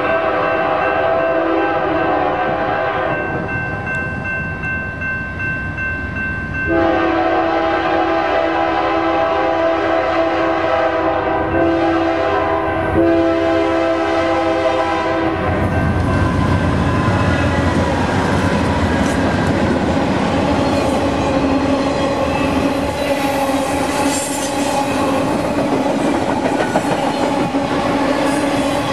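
BNSF diesel freight train sounding its chime air horn in long blasts as it nears a grade crossing, the chord changing about a third of the way in. The horn stops about halfway through as the locomotives pass close by with a deep rumble, and the freight cars follow, rolling and clattering over the rails.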